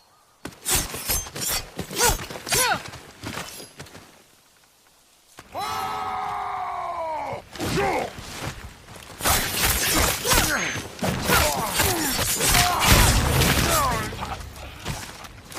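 Sword-fight sound effects: a quick run of katana blade clashes, each ringing with a metallic tone that bends downward in pitch. A long ringing blade sound follows whose pitch falls away, then a dense flurry of clashes with a heavy thud near the end.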